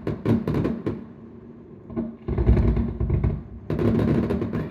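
Fireworks going off: sharp cracks and crackling, with a heavier, deep rumble of booms about two and a half seconds in.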